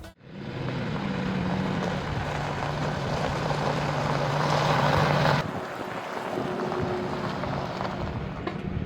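A motor vehicle's engine running steadily with a low hum under rushing noise. The sound drops and changes abruptly about five seconds in.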